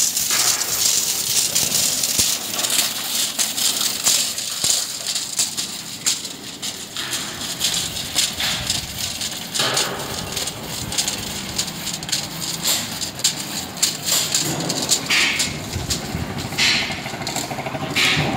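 Coils of soft copper pipe being handled and uncoiled, the turns rattling, clinking and scraping against each other in a run of short irregular clicks over a steady high hiss.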